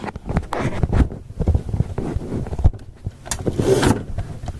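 Camera handling noise: irregular knocks, bumps and rubbing as the camera is picked up, moved about and set down.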